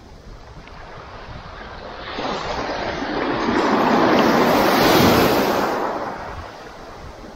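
Sea surf: a wave breaking at the water's edge and washing in, swelling about two seconds in, loudest near the middle, then fading away.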